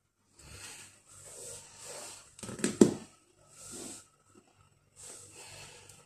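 Fabric rustling in about five short bursts as a doll swaddled in a blanket is handled close to the microphone, with a cluster of sharp knocks near the middle, the loudest sound.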